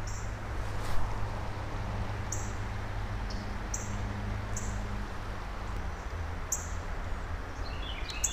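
A small bird chirping about once a second over a steady low rumble, with a quick run of falling notes near the end. A single knock about a second in.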